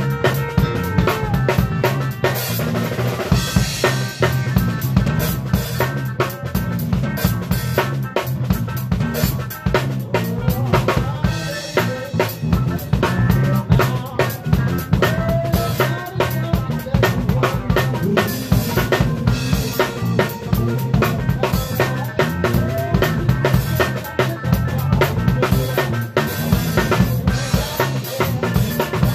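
A live band playing, heard right beside the drum kit: close snare, kick drum and cymbals drive a steady groove over a bass line and other band instruments, with a cymbal wash about three seconds in.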